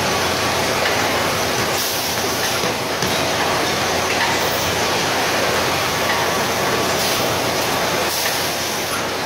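Bottle-packaging line machinery and conveyors running: a loud, steady factory din, with brief high hisses now and then.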